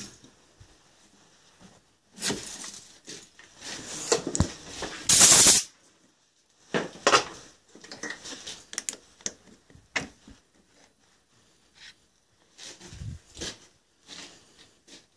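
Metal lathe winding down right at the start, then intermittent clinks and clatter of metal tools and parts being handled around the lathe, with a short loud rustle about five seconds in.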